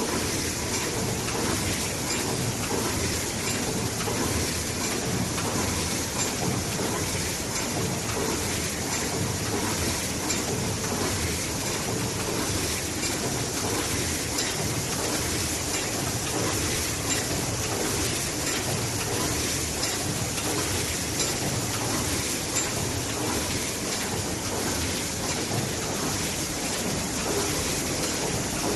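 Aseptic carton filling machine running: a steady, dense hiss and fine clatter that does not change.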